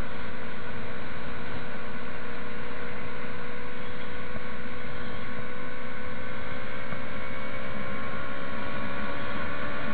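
Motorcycle engine running steadily on the road over a constant rushing noise, its pitch climbing slowly as it gathers speed.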